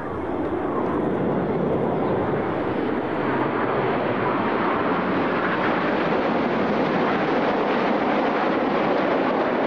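Jet noise from the Red Arrows' formation of BAE Hawk T1 trainers, each with a single Rolls-Royce Turbomeca Adour turbofan, passing overhead. It is a dense, even rushing that builds over the first two or three seconds and then holds steady.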